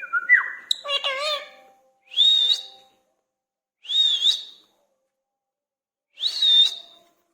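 Indian ringneck parrot calling: a quick run of wavering calls at the start, then three short, high, warbling whistles about two seconds apart.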